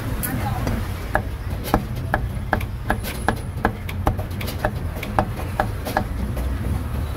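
Meat cleaver chopping roast meat on a wooden chopping block: a steady run of sharp knocks, about two to three a second.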